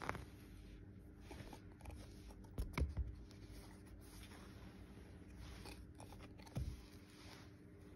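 A small heart-shaped ornament being nudged and slid about on a fabric sofa during a rabbit's play, with faint rubbing and a few soft knocks and clicks, the loudest cluster about three seconds in and another about two-thirds through.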